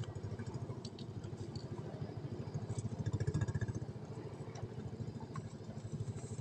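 A small engine running with a steady, rapid chugging that swells about three seconds in.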